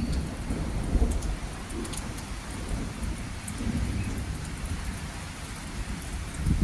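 Summer rain falling steadily, with scattered drop ticks over a continuous low rumble.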